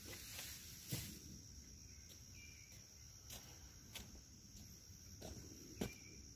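Quiet outdoor ambience: a faint, steady, high-pitched insect trill, with a few faint clicks and knocks, the clearest about a second in and near the end.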